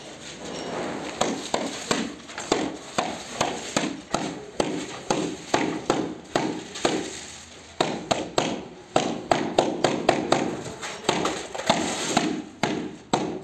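Repeated sharp taps and knocks of a steel trowel against glass mosaic tiles on a pool wall, seating the tiles in the adhesive. The taps come at an uneven pace and grow quicker in the second half.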